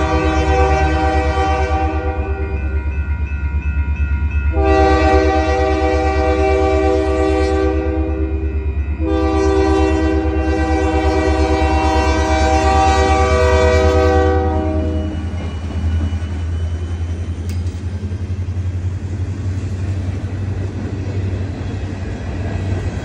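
Union Pacific diesel locomotive's air horn sounding long blasts for a grade crossing, the last held about six seconds, over the low rumble of the locomotive. After the horn stops, freight cars roll past with a steady rumbling clatter of wheels on rail.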